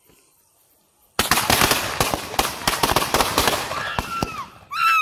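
A 50-shot firework cake going off on the ground. After about a second of silence it starts suddenly with a dense, rapid run of bangs and crackles, and near the end a few short whistles rise and fall in pitch.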